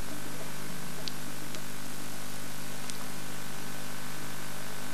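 Steady hiss with a low hum and a few faint clicks: the background noise of an old recording's transfer.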